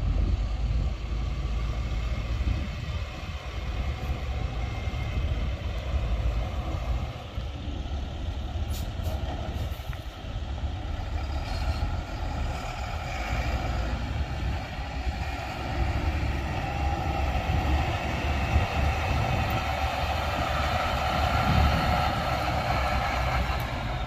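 International DT466 7.6-litre straight-six diesel of a 1998 International 4900 truck running, a continuous rumble that swells and eases slightly in level.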